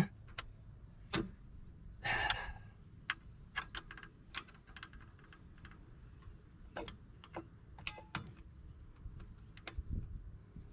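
Faint, irregular metallic clicks and taps of drum brake shoes and their hardware being handled and seated on the backing plate, with a brief scrape about two seconds in.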